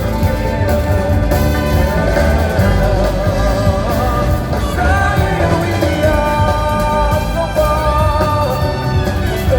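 Live band music from a concert: a sustained melody line that holds and slides between notes over a full, steady accompaniment.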